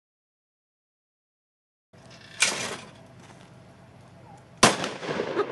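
Two seconds of silence, then a loud sharp report, and about two seconds later a single much sharper 12-gauge shotgun blast, the loudest sound, from a Mossberg pump-action fired one-handed.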